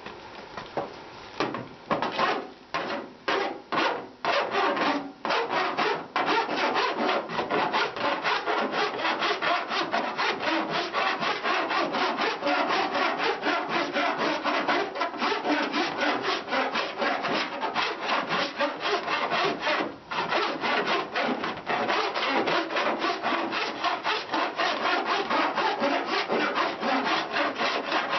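Flat hand file rasping back and forth over hard lead-free body solder on a welded steel patch panel seam, smoothing the filler down. A few separate strokes at first, then quick continuous strokes with one brief pause about two-thirds of the way through.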